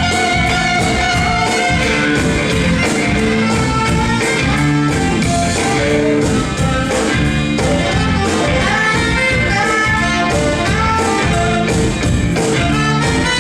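Live band playing a soul-blues number with a steady drum beat, no lead vocal line.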